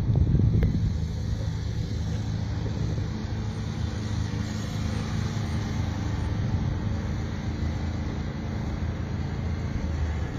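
An engine running steadily at low, even revs, with a louder noisy swell in the first second.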